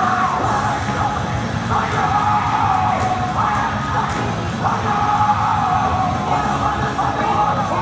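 Loud rock music with a singer's held, shouted vocal lines.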